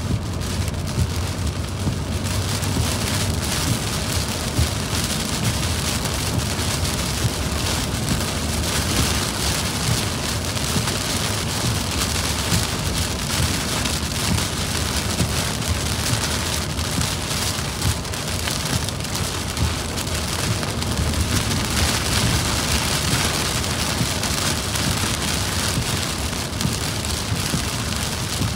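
Heavy rain on a moving car, a steady hiss over the low rumble of tyres on the wet road. The hiss grows louder about two seconds in.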